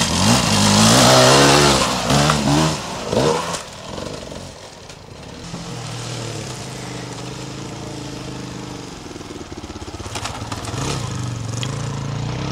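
Dirt bike engines in an enduro race. One bike passes close, revving hard with the throttle blipping up and down over the first three seconds or so, then drops away. Another bike then runs steadily further off, growing a little louder near the end.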